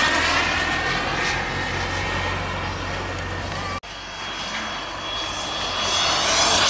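Turbine of a radio-controlled ViperJet model jet flying past: a steady high whine over a rushing noise that fades as it goes by. It cuts out for an instant a little over halfway through, then swells again near the end as the jet comes round.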